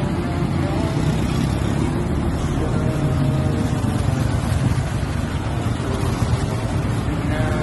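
Steady low rumble of motor vehicle engines and road traffic.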